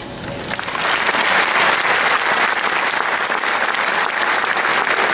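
Large audience applauding. The clapping builds quickly within the first second, then holds steady and dense.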